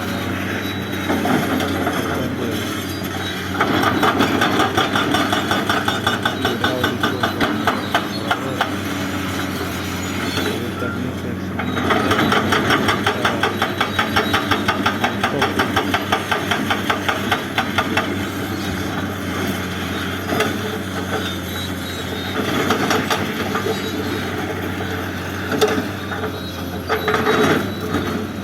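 Hydraulic breaker hammer on a Cat 336DL excavator pounding in long runs of rapid, even blows, with a brief stop about ten seconds in, over the excavator's diesel engine running steadily.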